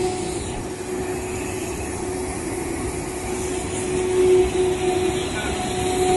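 PVC ceiling panel production machine running: a steady mechanical noise with a constant hum.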